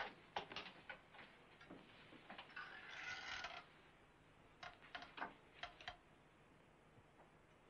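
Faint small clicks and knocks of objects being handled, with a short rustle about three seconds in and a second run of quick light clicks a little later.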